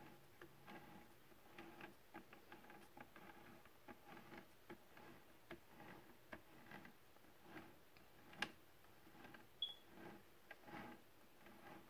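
Faint, irregular light clicks and ticks from the display turntable turning the model car, a couple of them sharper about two-thirds of the way in.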